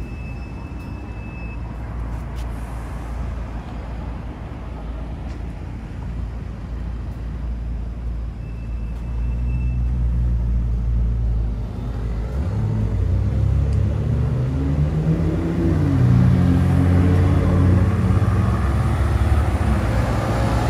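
Road traffic: a steady low engine rumble. From about twelve seconds in, a heavier vehicle engine runs close by, its pitch rising and falling as it pulls away, and it grows louder toward the end.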